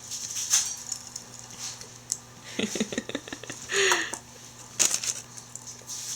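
A baby making mouth noises: scattered sharp clicks and smacks, a short low rattling burst about two and a half seconds in, and a brief squeak of voice near four seconds.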